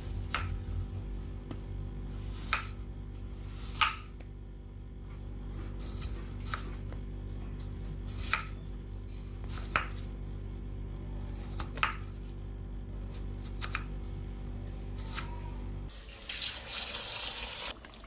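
Kitchen knife cutting raw potatoes into fries on a chopping board, a sharp knock of the blade on the board every second or two. Near the end, tap water runs for about two seconds.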